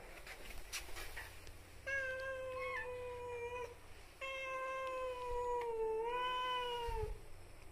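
A cat giving two long, drawn-out meows, each lasting two to three seconds. The pitch holds fairly level, and the second meow wavers near its end.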